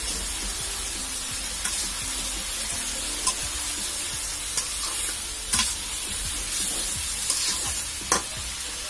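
Metal spatula stirring soft bottle gourd and potato pieces in a metal kadai, scraping and knocking against the pan with several sharp taps over a steady sizzle from the cooking curry.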